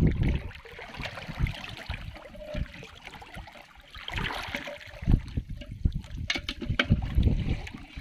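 Water sloshing and trickling around a person wading waist-deep in floodwater, with uneven splashes and a few sharper ones about six seconds in.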